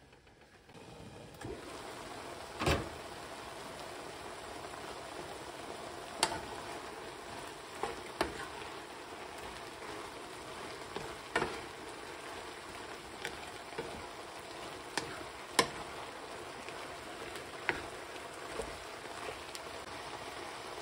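Shrimp and asparagus frying in butter in a pan, a steady sizzle that sets in about a second in, with a wooden spatula knocking and scraping against the pan every few seconds as the food is stirred; the loudest knock comes about three seconds in.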